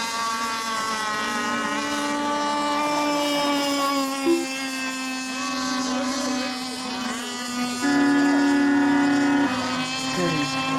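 Several radio-controlled racing boats' small engines running on the water: a steady high-pitched drone whose pitch drifts slowly as the boats circle. One engine gets louder for about a second and a half, about eight seconds in.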